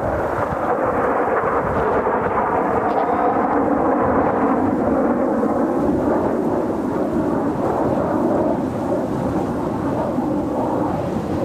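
Jet noise of Kawasaki T-4 jet trainers' turbofan engines as the formation flies past. It is a loud, steady rush that swells in at the start and holds.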